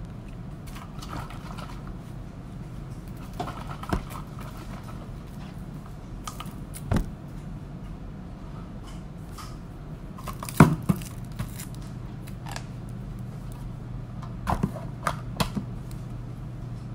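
Plastic cup of ready-to-drink latte being handled and opened at a desk: scattered clicks and knocks, with a quick cluster of them near the end, over a steady low room hum.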